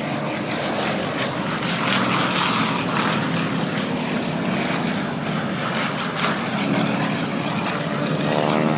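Propeller-driven aircraft engines running loud and steady over the field, with the engine pitch sliding as a plane passes near the end.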